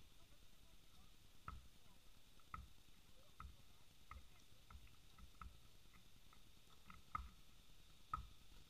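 Faint, hollow thuds of a basketball bouncing on a modular plastic tile court, about one a second at uneven spacing, the two loudest near the end.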